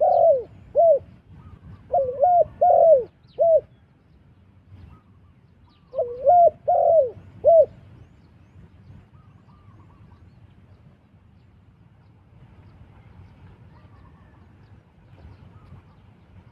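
Spotted dove cooing: three short phrases of three or four low notes each, a few seconds apart, stopping about eight seconds in.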